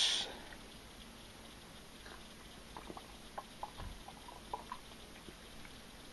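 A person drinking white wine from a glass: a brief breathy sound at the very start, then faint small swallowing clicks scattered through the middle.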